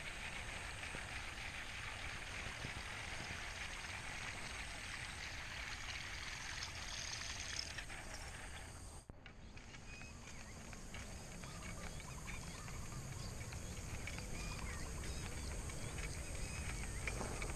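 Steady, quiet outdoor background hiss with faint chirping animal calls. The sound drops out briefly about nine seconds in.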